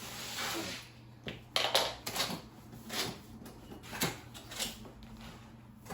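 Cardboard shipping box and packaging being handled and opened: a short rustling scrape, then a series of irregular knocks and taps.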